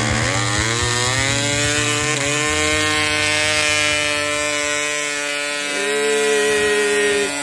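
Super Tigre G20 model diesel engine, freshly restored with a repaired crankshaft, started with an electric starter: it catches and speeds up over the first couple of seconds, then runs steadily at a high, even pitch.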